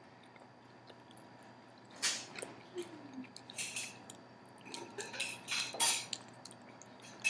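A person chewing soft, chewy candy close to the microphone: scattered bursts of wet mouth noise starting about two seconds in, with a brief closed-mouth murmur.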